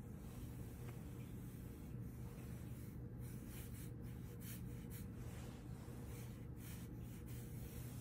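Quiet indoor room tone: a steady low hum with faint, brief scratchy rustles now and then.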